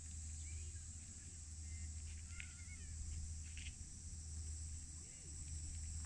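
Steady high-pitched insect chirring over a low steady rumble, with a few faint short chirps.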